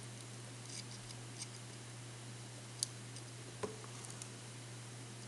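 A few faint, scattered clicks and ticks of small wires and a soldering tool being handled, over a steady low hum.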